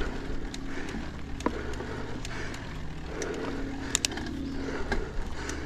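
Transition Spur mountain bike being pedalled up a climb on a rocky dirt trail: a steady low hum of tyres and drivetrain with scattered ticks and clicks, the sharpest about four seconds in.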